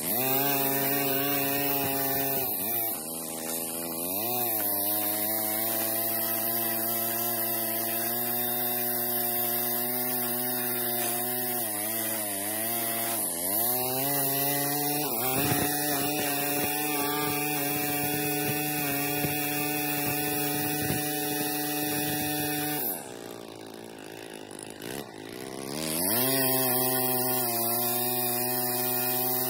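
A small engine running steadily at speed, its pitch sagging and recovering several times. About three-quarters of the way through it drops off and goes quieter for a few seconds, then revs back up.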